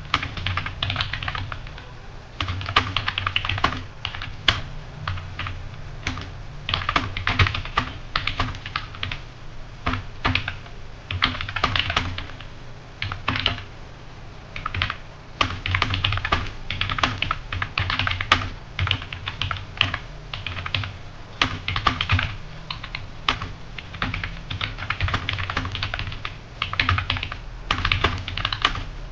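Computer keyboard being typed on fast and steadily, keystrokes coming in quick runs broken by brief pauses, as in touch-typing a passage for a typing speed test.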